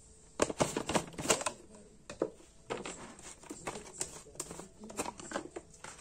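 A clear plastic tub and a cup being handled and set down on a desktop cutting mat: a run of light plastic clicks and taps, busiest in the first second and a half, then scattered through the rest.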